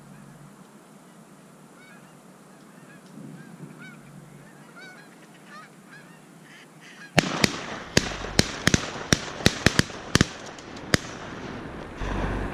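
Geese honking faintly, then about seven seconds in a rapid volley of a dozen or so loud, sharp shotgun reports over about four seconds as several hunters fire at once.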